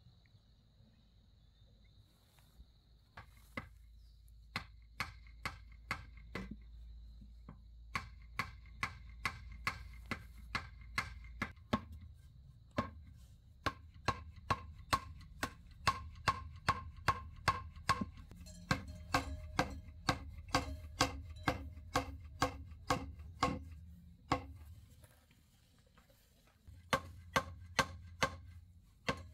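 A knife chopping food on a cutting board in a steady run of sharp strokes, about two to three a second. The chopping pauses briefly twice and picks up again near the end.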